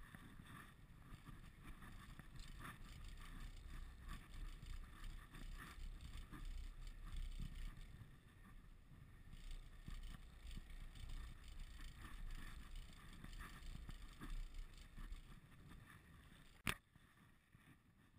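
Wind rumble on the microphone and bicycle tyre noise as a road bike rolls across a steel truss bridge, partly on its open steel-grate deck. A single sharp click near the end.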